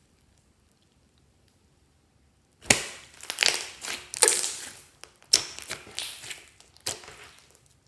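Clear slime being squished and kneaded by hand, giving crackling, crunchy pops in two bouts. The first bout begins with a sharp pop a little over two seconds in.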